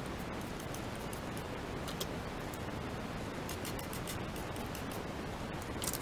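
Light clicks and knocks of plastic vacuum-cleaner dust-case parts being handled and set down in a ceramic sink, the loudest just before the end, over a steady hiss.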